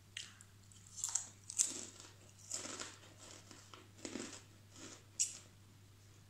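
A person chewing a dry cracker with the mouth close to the microphone: irregular crisp crunches every half second or so.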